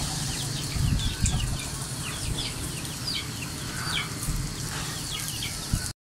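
Birds chirping: many short high notes, each falling in pitch, a few a second, over a low rumble of wind on the microphone.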